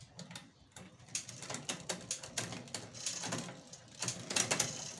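A bicycle drivetrain spinning freely as the pedal is turned by hand with the rear wheel lifted. The chain runs over the cassette and the pulleys of a Shimano Alivio rear derailleur with a rapid, uneven clicking and rattling.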